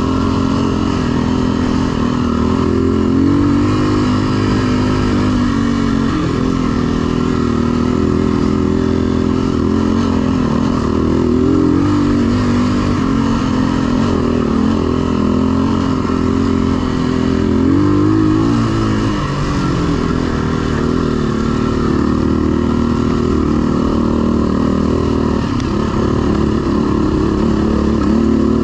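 Enduro motorcycle engine, an HM Locusta, running under load on rough terrain, its note rising and falling with the throttle several times.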